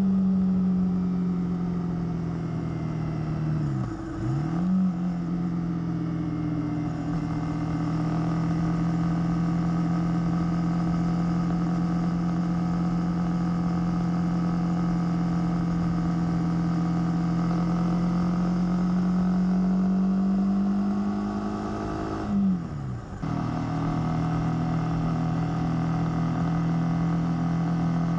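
Honda CB300R's single-cylinder engine through its stock exhaust, running at a steady cruising pitch. Twice, about four seconds in and again about six seconds before the end, the note drops sharply in pitch and quickly comes back up.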